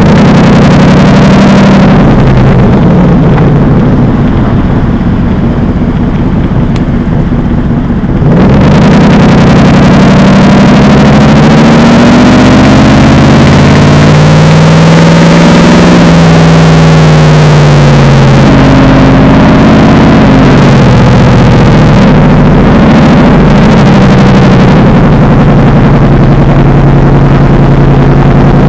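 Mercedes-Benz SLR McLaren's supercharged 5.4-litre V8 running loud through an aftermarket Devil Sports exhaust, its note rising and falling in pitch with the throttle. About two seconds in it drops back to a quieter, duller note, then about eight seconds in it comes back in hard and keeps climbing and falling.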